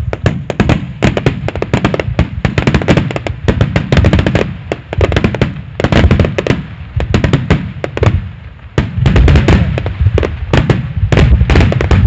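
Large aerial fireworks bursting in rapid, overlapping volleys: deep booms mixed with sharp cracks, many per second. The barrage eases briefly about two-thirds of the way through, then starts again at full force.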